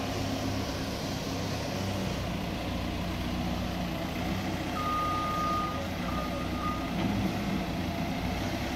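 Telehandler's diesel engine running steadily as it maneuvers with a load. About five seconds in, a high steady beep sounds for roughly two seconds with a short break partway through, typical of the machine's reversing alarm.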